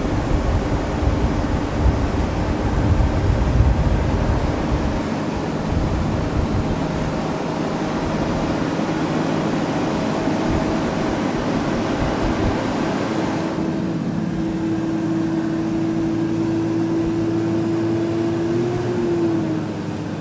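A large engine running steadily with a low rumble and a steady hum. About two-thirds of the way through the hiss drops away, and near the end the engine's pitch briefly rises and falls back.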